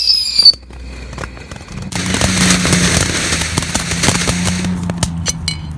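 Fireworks going off: after a few scattered cracks, a dense run of rapid crackling and popping for about three seconds, thinning to a few separate pops near the end. A brief high whistle opens it.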